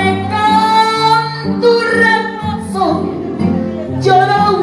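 A woman singing karaoke into a handheld microphone over a recorded backing track, holding long sung notes.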